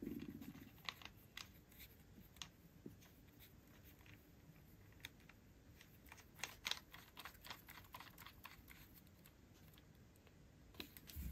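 Faint, scattered small clicks and taps of a repaired rubber antenna being handled and screwed back onto a Kenwood TH-F7 handheld radio's connector, with a quick cluster of clicks about six to seven seconds in.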